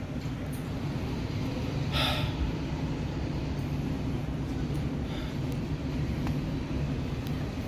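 Steady low rumble of street traffic, with a short breathy hiss about two seconds in.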